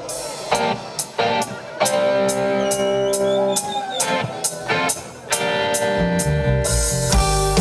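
Live rock band opening a song: electric guitar chords ring out over a steady ticking beat about twice a second, and the bass and full drum kit come in about six seconds in.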